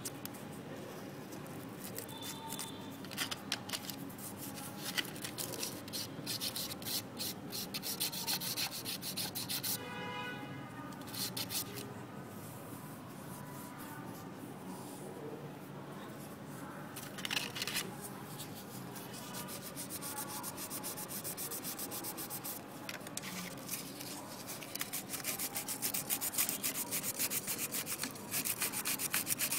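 Cork body of a homemade fishing float being sanded by hand against sandpaper: quick repeated gritty rubbing strokes, with a short squeak about ten seconds in.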